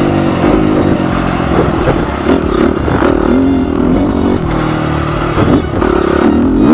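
Honda CRF250R motocross bike's single-cylinder four-stroke engine being ridden hard, its note rising and dropping repeatedly with the throttle and gear changes.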